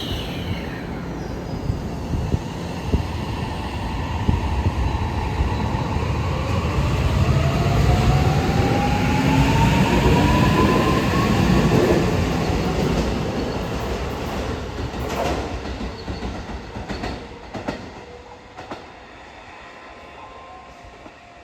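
Keisei 80000 series electric train running past and pulling away, its motor whine rising steadily in pitch as it speeds up. Wheels click over rail joints as the last cars go by, and the sound fades near the end.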